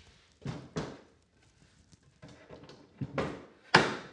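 Wood panels knocking and scraping as a plywood piece is handled and set in place: two short knocks about half a second in, then two more near the end, the last the loudest.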